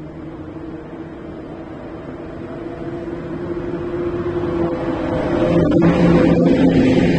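PKP Intercity EP07 electric locomotive hauling a passenger train slowly through a station. It hums with several steady tones over the rumble of the train, growing louder as it approaches and loudest as it passes close by about five and a half seconds in.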